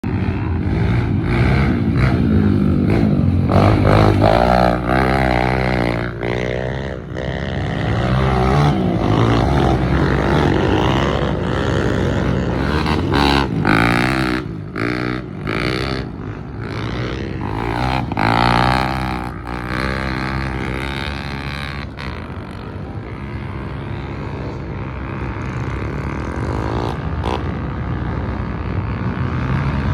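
A vehicle engine running and revving up and down again and again while on the move, with frequent short knocks.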